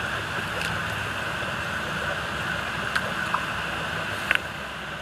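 Small clear plastic tarantula enclosure being handled, with a couple of light plastic clicks about three seconds in and a sharper click near the end, over a steady hiss of room noise.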